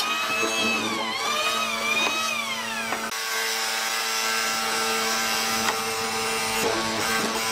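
Hollow-chisel mortising machine's electric motor running while the chisel is plunged into wood, its pitch dipping and recovering about once a second with each plunge. About three seconds in, after a cut, it runs on at a steady pitch.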